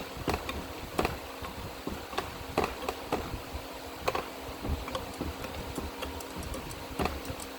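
Hand-operated tube bead-forming tool being worked around a metal coolant tube: irregular metallic clicks and ticks as it is squeezed and turned around the tube.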